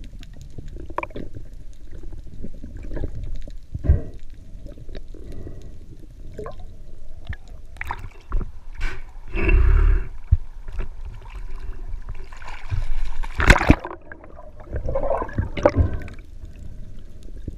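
Water sloshing and gurgling around an underwater camera as a diver swims with a speared fish, with scattered knocks on the housing. There are louder rushes of splashing about halfway through and again a few seconds later.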